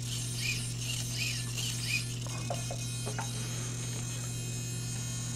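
Hobby servos of a PhotoHigher AV130 camera gimbal whining in short rising chirps as they correct for the hexacopter being tilted by hand, over a steady electrical hum. A few light clicks come between about two and three and a half seconds in.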